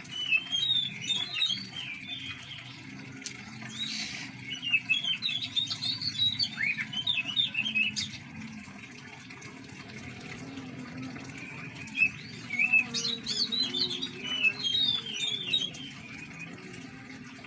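Oriental magpie-robins (kacer) chirping and singing in bouts of quick, high, varied twittering notes, quieter for several seconds in the middle.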